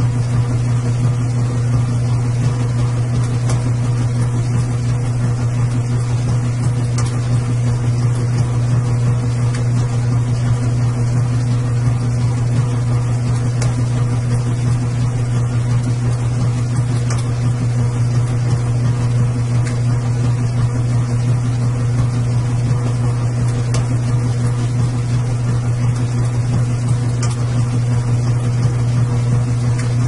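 Washing machine running with a steady low hum, with faint ticks about every three and a half seconds.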